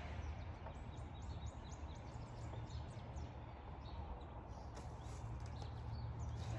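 Outdoor backyard ambience: a low, steady rumble with faint bird chirps scattered through it.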